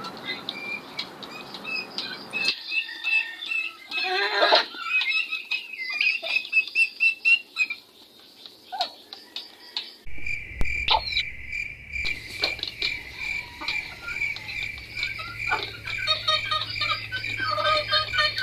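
Chickens and chicks peeping and pecking at feed, with short high chirps and scratchy pattering. About ten seconds in, a cricket's steady pulsed chirping takes over, with a low hum beneath it.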